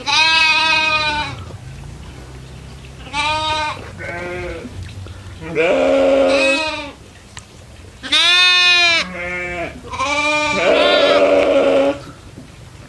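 Goats bleating: about eight separate calls, some coming in close pairs, with short pauses between them.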